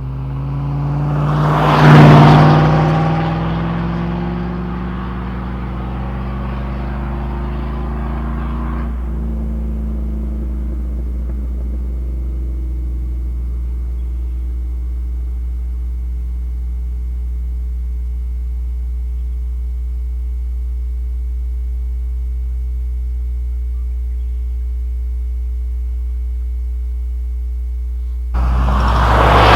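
A 5.3L V8 (LM7) running through a Cherry Bomb muffler, heard inside the truck's cab. It revs up to a loud peak about two seconds in, then falls off over several seconds as the truck decelerates and settles into a steady low drone. The revs climb again sharply near the end.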